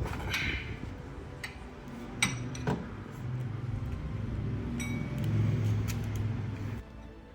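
Wrench clinking twice against the tie-rod end nut, metal on metal, followed by a steady low hum that stops suddenly near the end.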